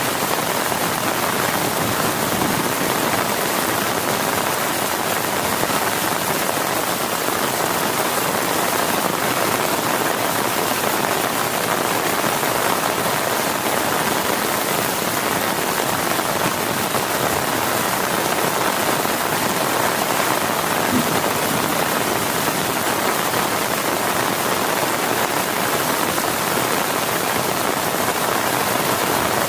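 Heavy rain pouring steadily, a dense, even hiss of rain on a surface.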